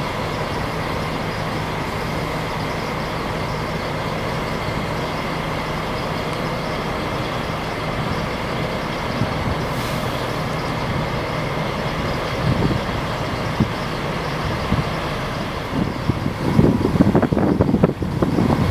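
Semi-truck diesel engines idling, a steady drone with a thin steady tone over it; near the end a louder, rough, uneven rumble comes in.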